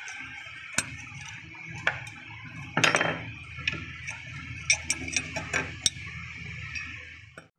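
Metal clinking and scraping as old rusty tin snips are taken apart by hand: the pivot nut is turned off and the two halves are worked loose. Scattered clicks, a louder scrape about three seconds in, and a quick run of clicks around five seconds.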